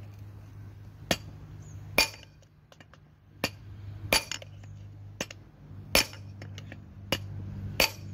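A hammer striking a long steel punch held against the bearing in a combine harvester's bearing housing, driving the bearing out: six sharp metallic clinks at uneven gaps of one to two seconds, with a low steady hum underneath.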